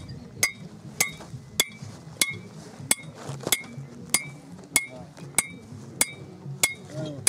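Hammer blows on a metal tent stake, driving it into the ground: a steady run of about a dozen strikes, one every half second or so, each with a short metallic ring.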